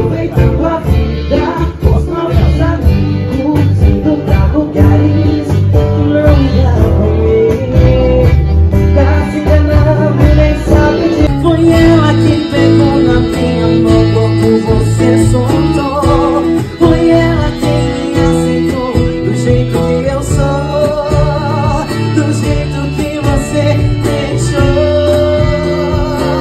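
Sertanejo song performed with an accordion, and a woman singing into a microphone over it.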